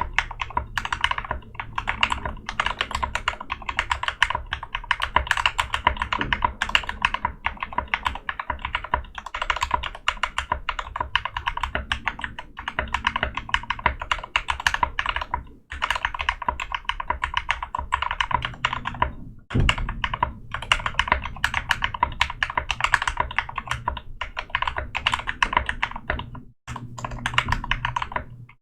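Fast, continuous typing on a Drop CTRL mechanical keyboard fitted with Gateron Clear linear switches, lubed stabilizers, case foam and XDA-profile keycaps. The typing breaks off briefly a few times.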